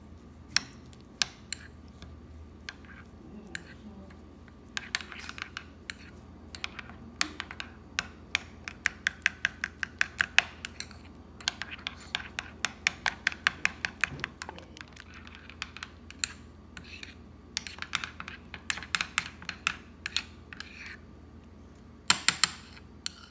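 A metal spoon stirring thick tomato sauce in a small glass bowl, clicking against the glass in quick runs of taps with short pauses between, loudest in a burst near the end.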